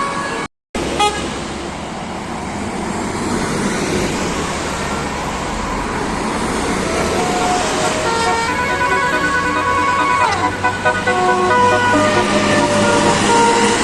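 Tour bus sounding a Basuri multi-tone 'telolet' air horn, which plays a run of stepped melody notes, with a falling glide, from about halfway in. The notes sit over the steady noise of the bus engine and traffic.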